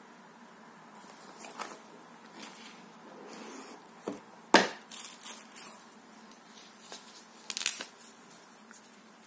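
Handling of a cardboard product box being opened: light scrapes and rustles, a single sharp knock about halfway through, then crinkling and rustling as the black nylon holster is lifted out.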